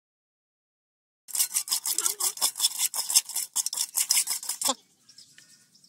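After about a second of silence, hands rub and knead small fish with spice paste in a terracotta bowl: a quick run of rasping, scrubbing strokes, several a second, for about three seconds before stopping.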